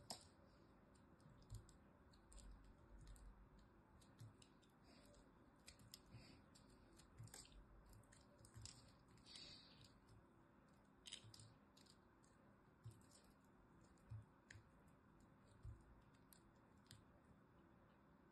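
Small blade cutting into a dry, crumbly bar of soap: faint crisp clicks and crunches, coming thick and fast for the first half and sparser, about one a second, later on.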